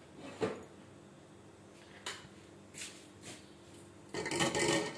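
Cloth-wrapped glass lid being handled and lifted off a pot of rice steamed on dum: a light knock about half a second in, a few faint taps, then a short burst of cloth rustling and lid clatter near the end.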